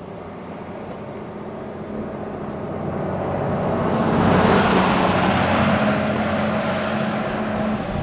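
Niigata-built AN8800-series single-car diesel railcar running on the line, its engine giving a steady hum. The noise swells to its loudest about halfway through, then eases off.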